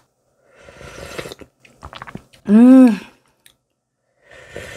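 A person sipping and slurping spicy stew broth from a spoon, with small wet mouth clicks and chewing sounds. About halfway through there is a short hummed vocal 'mm', rising then falling in pitch, the loudest sound.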